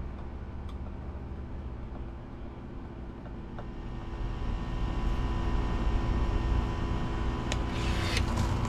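A steady low engine rumble with a hum of fixed tones, growing louder about halfway through, with a few short sharp clicks near the end.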